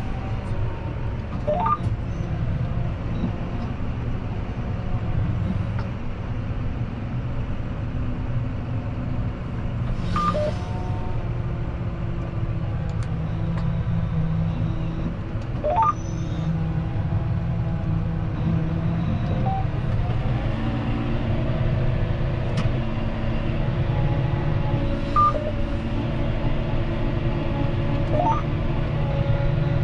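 John Deere 6215R tractor's six-cylinder diesel running steadily under working load, its note shifting about two-thirds of the way through. Several short rising chirps sound over it.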